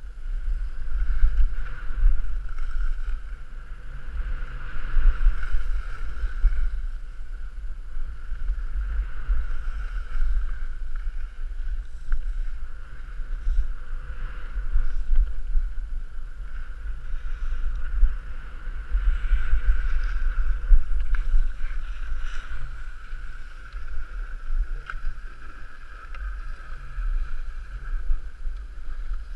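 Wind buffeting an action camera's microphone during a downhill ski run: a heavy, uneven low rumble. Over it runs a steady hiss of skis sliding on packed snow that swells and fades with the turns.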